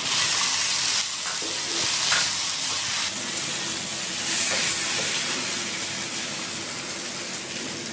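Chopped onion, carrot, potato and green peas sizzling in oil in a pan as they are stirred, a steady frying hiss with a few faint scrapes.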